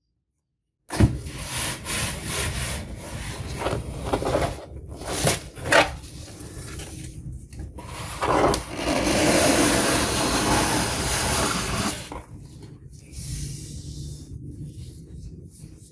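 Fabric ribbon being untied and slid across a cardboard mailer box, with hands rubbing on the cardboard. It starts about a second in with a few sharp rustles, then a long stretch of steady rubbing from about the middle, and quieter handling near the end.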